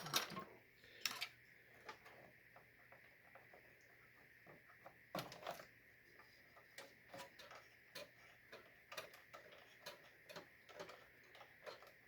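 Quiet, irregular clicks and ticks of a screwdriver turning motherboard screws into the case standoffs, with a cluster of louder clicks near the start and about five seconds in.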